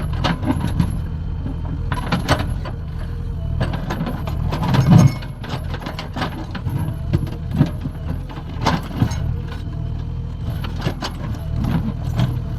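Diesel engine of a JCB 3DX backhoe loader running steadily under load while its bucket digs into mud and stone, with repeated knocks from the bucket and a heavier thump about five seconds in.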